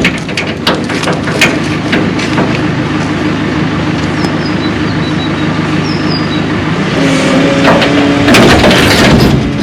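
A vehicle engine running steadily, its pitch changing about seven seconds in, with scattered knocks and clatters over it.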